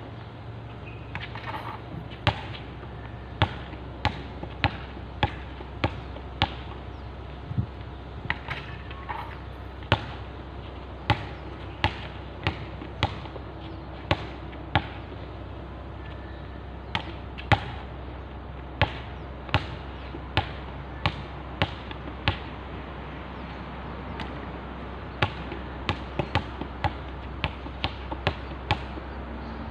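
Basketball bouncing on a hard court as a player dribbles, a steady run of sharp bounces about one and a half a second, with a short pause about halfway through.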